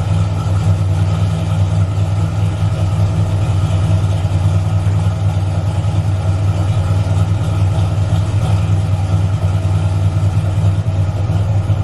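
Ford Mustang foxbody's engine running steadily, a deep even drone with no revving or change in pitch.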